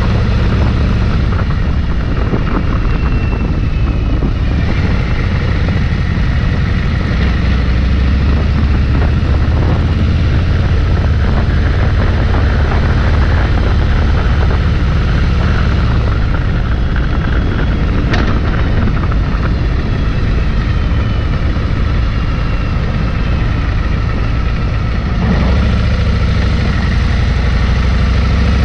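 Bagger motorcycle's engine running steadily as it cruises at low speed, with one brief sharp click about two-thirds of the way through.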